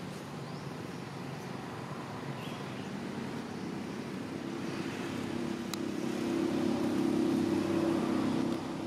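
A motor vehicle's engine running, a low steady hum that grows louder over a few seconds and eases off near the end, as when a vehicle passes by.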